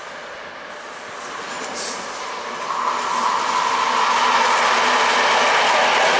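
V 100 (DR) diesel-hydraulic locomotive coming up and passing close. Its engine and wheels on the rails grow sharply louder about three seconds in and stay loud.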